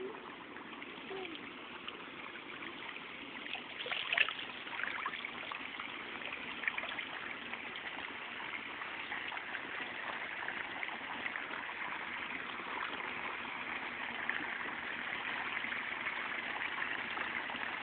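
Swimming pool water trickling and lapping steadily, with a few small splashes about four and five seconds in.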